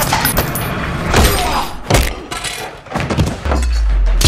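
Film action sound effects: a string of sharp thuds and impacts, then a low rumble building near the end.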